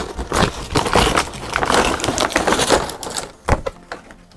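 Plastic and cardboard toy packaging being handled: a dense crackling and clattering, with a sharp click about three and a half seconds in.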